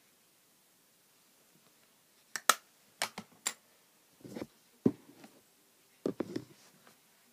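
Makeup items and their cases being handled and set down: a quick run of sharp clicks about two and a half to three and a half seconds in, then duller knocks and taps as a lip product is picked up.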